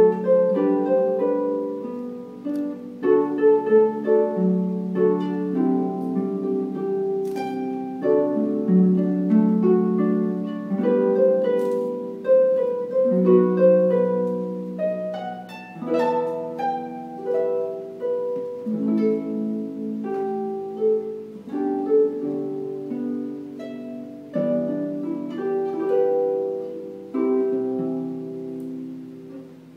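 Concert harp played solo: a steady flow of plucked notes and chords, each note ringing on, the playing dying away near the end.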